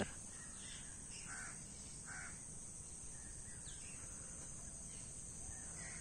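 Faint, distant crows cawing a few times in the first couple of seconds, over a steady high drone of insects.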